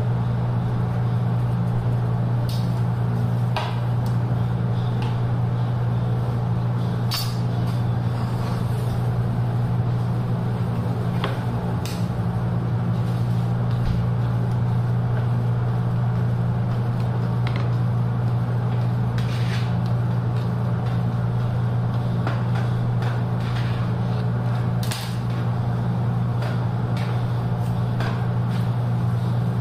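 A loud, steady low mechanical hum that never changes, with scattered light clicks and scrapes of a metal palette knife working cream against a cake turntable.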